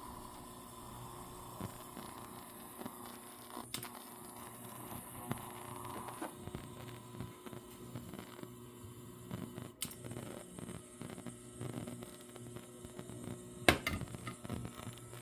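Rinnai RBR-IGB310 hybrid cooktop's induction zone running with a low, steady electrical hum, with a few light clicks and one sharp knock near the end.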